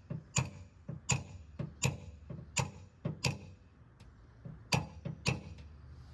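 Small hammer tapping a metal paintless-dent-repair tool against a car's quarter panel: seven light, sharp metallic taps, roughly one every 0.7 seconds, with a brief pause about four seconds in.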